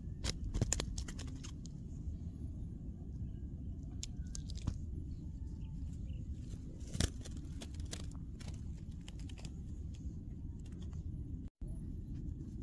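Wind rumbling on the microphone, with scattered small clicks and rustles from hands handling close by. The sound cuts out for a moment near the end.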